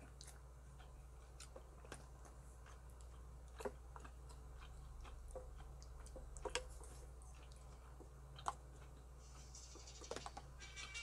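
Quiet eating: a few light, scattered clicks and taps of a wooden spoon in a stainless steel pot, with faint chewing.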